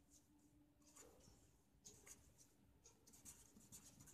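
Faint short strokes of a felt-tip marker pen scratching across the writing surface as letters are written.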